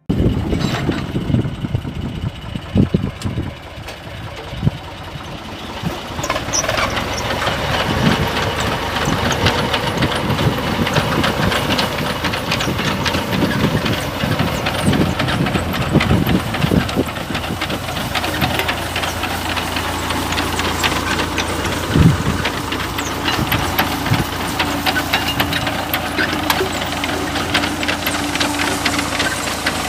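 Tractor engine running steadily while pulling a potato harvester, with a dense, continuous clatter of the digger's moving parts and the soil and potatoes passing over them. One louder knock stands out about two-thirds of the way through.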